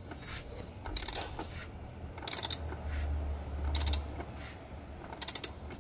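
Ratchet wrench clicking in four short bursts as it is swung back on a puller's forcing screw. The puller is drawing out a vacuum pump cap that is stuck in tight.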